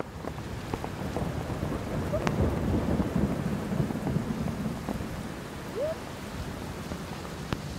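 Steady rain with a low rumble underneath, and a couple of brief squeaks.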